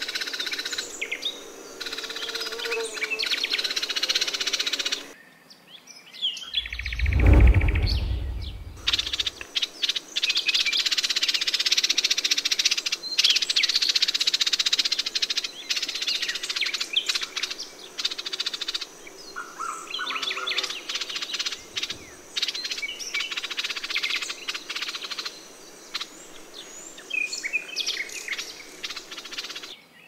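Forest birds chirping and calling in a dense, overlapping chorus. About seven seconds in, a low rumble lasting a few seconds is the loudest sound.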